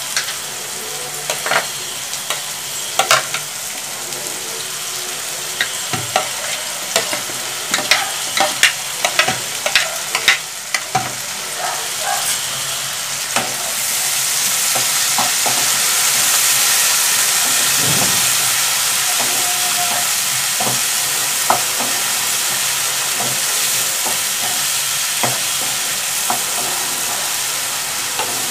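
Vegetables sizzling in hot oil in a nonstick wok while a wooden spatula stirs and knocks against the pan, with many sharp clacks in the first half. About halfway through the sizzle becomes louder and hissier once shredded cabbage and spring onions are in the pan.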